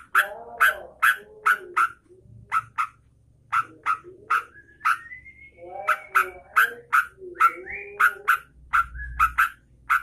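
Caged yellow-vented bulbul (trucukan) calling: a fast run of sharp, loud chip notes, about three a second, with lower warbling notes under some and a thin rising whistle midway.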